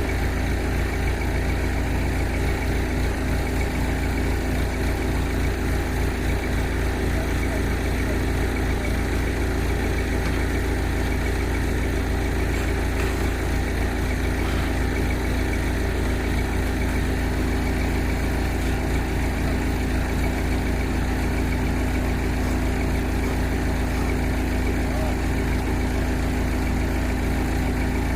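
Backhoe's engine running steadily at an even, unchanging speed.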